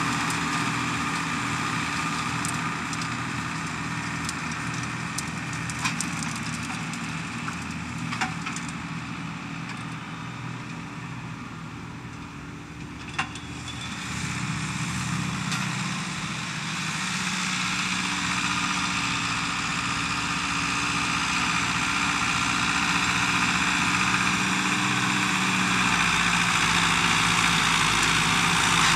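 Tractor engine running steadily, fading away toward the middle and then growing louder as it comes closer, with a few sharp knocks along the way.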